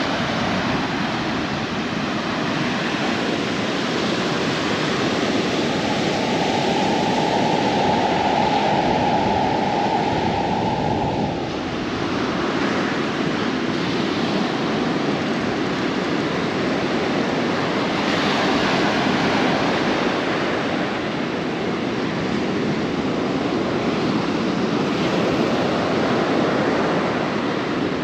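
Ocean surf rushing steadily, mixed with wind noise, swelling now and then. A steady hum joins it about five seconds in and cuts off abruptly after about six seconds.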